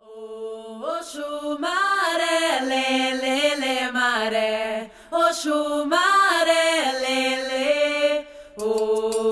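Music: a single voice chanting a melody that glides up and down. It breaks off briefly about five seconds in and again near the end.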